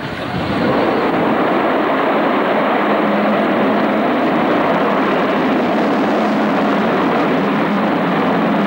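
Avro Vulcan XH558 jet bomber's four Olympus turbojets: loud, steady jet noise from the aircraft passing overhead, building up in the first second and then holding.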